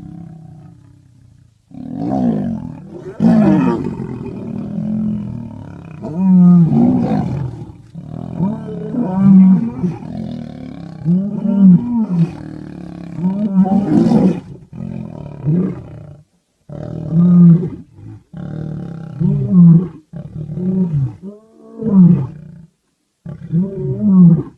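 Male lions roaring again and again in a fight, two younger males against an older, weakened pride male. The calls are loud, each rising and falling in pitch, coming in quick succession with only short pauses.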